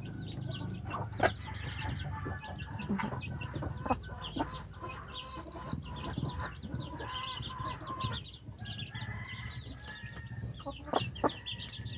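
Rhode Island Red chickens clucking in their coop, over a steady run of short high chirps and a few sharp taps.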